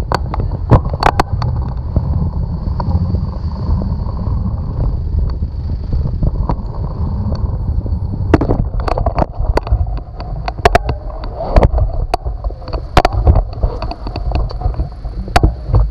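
Wind buffeting the microphone of a camera mounted on a moving bicycle, a heavy low rumble throughout. From about eight seconds in, a run of sharp knocks and rattles sits on top of it.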